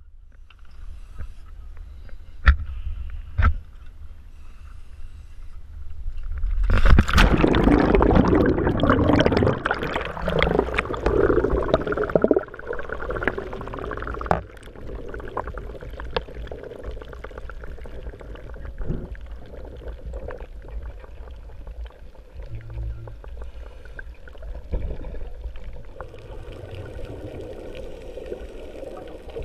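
Water and bubbles heard through a dive camera: a sudden loud rush of water about seven seconds in that dies down over several seconds, then steady fainter bubbling and crackling.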